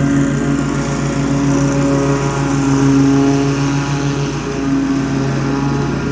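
Riding lawn mower's engine running steadily at an even speed while mowing grass.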